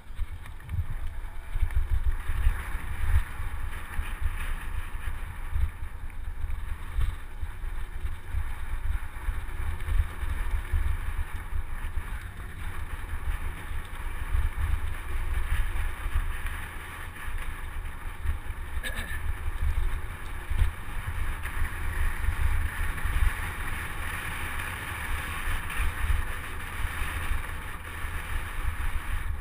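Wind buffeting the microphone of a camera riding on a mountain bike, a dense low rumble, with a steady hiss from the tyres rolling over the dirt trail.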